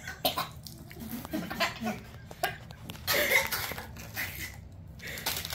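A girl's short coughs and laughs with her hand over her mouth, along with a crinkly plastic snack wrapper rustling.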